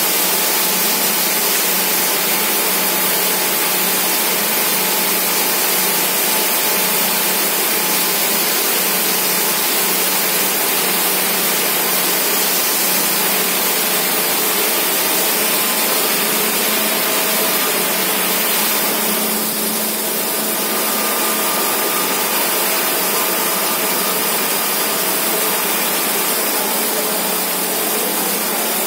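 Mayer & Cie S4 open-width single-jersey circular knitting machine running, a steady, even mechanical noise that holds constant throughout.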